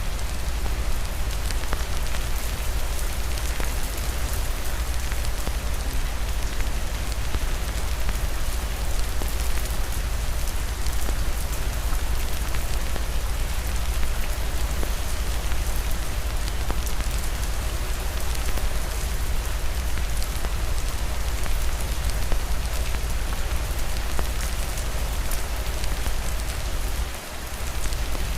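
Steady rain with a deep low rumble underneath, mixed with fireplace crackling heard as scattered ticks; the level dips briefly near the end.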